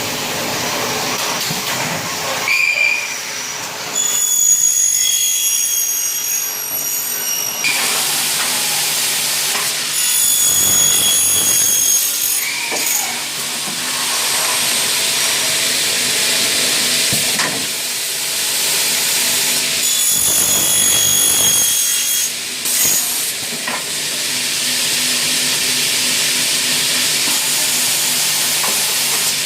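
CNC machine cutting Xingfa aluminium profile: a loud steady hiss, with a high-pitched cutter whine that comes in three spells of a few seconds.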